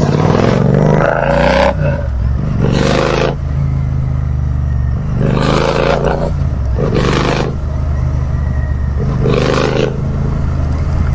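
Royal Enfield Interceptor 650's parallel-twin engine running loud through a de-baffled exhaust with its silencer mesh removed: a steady rumble while riding, with five short bursts of rushing noise over it.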